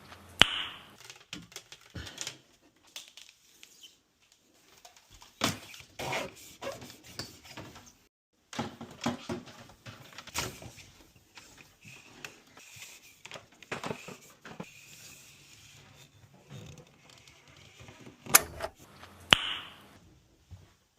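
Scattered clicks, taps and rattles of plastic parts and tools being handled during a refrigerator water-line and filter-holder repair. Two sharp snaps, each followed by a brief ringing, come about half a second in and near the end.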